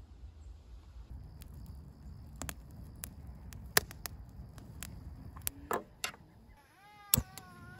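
Wood campfire crackling in a steel fire ring, with scattered sharp pops. Near the end comes a short wavering whine and one loud sharp click.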